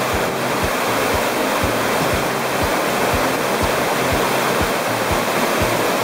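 Waterfall in high flood, a steady heavy rush of water. Background music runs underneath with a steady low beat of about two thumps a second.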